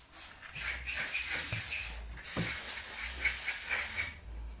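Air hissing out of a punctured motorcycle tyre around a plug-insertion tool pushed into the hole, the string plug not yet set. The hiss breaks off briefly a couple of times and dies away near the end.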